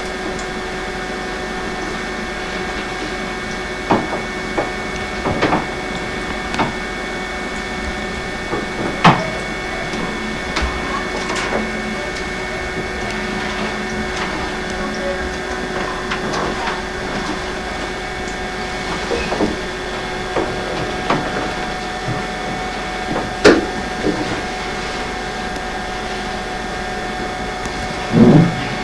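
A steady mechanical hum with several fixed tones, with scattered light clicks and knocks over it, the sharpest about nine seconds in, again at about twenty-three seconds, and a heavier knock near the end.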